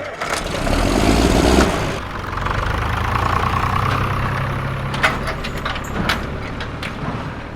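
Tractor engine running steadily at idle. It is louder over the first couple of seconds, with a few sharp clicks about five and six seconds in.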